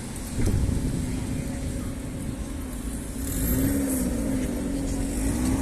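City street ambience: a steady low rumble of passing car traffic, with a person's voice coming in around the middle.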